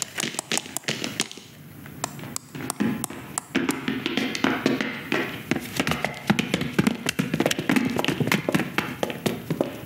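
Rapid, irregular patter of many small plastic taps and clicks, like toy army men's plastic bases hopping and tapping across a floor.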